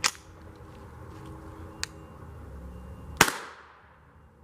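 .22 rifle shots: a sharp crack right at the start, a weaker crack a little under two seconds in, and the loudest crack about three seconds in, its tail fading over most of a second.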